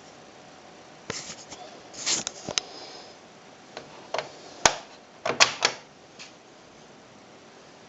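Smith Corona PWP 3600 electronic word processor typewriter making a string of irregular sharp clicks and clacks, the loudest near the middle, with short gaps between them.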